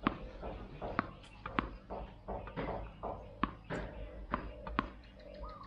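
Tennis ball bounced by hand on a concrete driveway before a serve, a sharp knock with each bounce, about half a dozen times.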